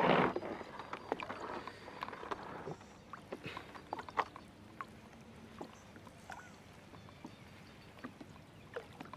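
Wet nylon gill net being pulled up out of lake water by hand: faint dripping and small splashes, with scattered light ticks.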